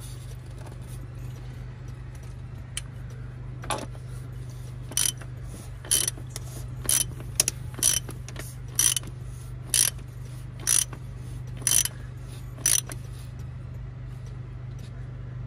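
Hand fuel primer pump on a Paccar MX13 diesel's fuel filter housing being stroked to prime the fuel system after a filter change. It gives a short sharp click on each stroke, about nine strokes at roughly one a second starting about four seconds in, over a steady low hum.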